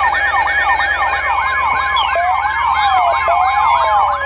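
Several electronic sirens sounding at once: a fast up-and-down yelp of about three sweeps a second over steady tones, joined about two seconds in by a slower rising-and-falling wail.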